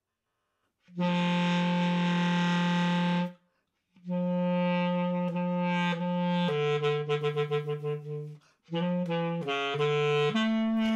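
Solo basset horn playing: about a second in, a long low held note, then a phrase of shorter notes with a quick run, ending on another held note.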